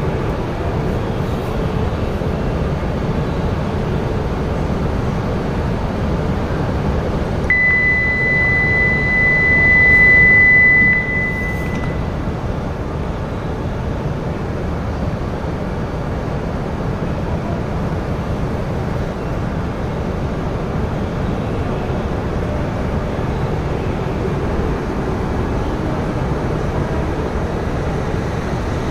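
E5-series Hayabusa shinkansen standing at the platform with a steady low hum, and a steady high warning beep for about three and a half seconds as its doors close. The hum carries on as the train starts to move off near the end.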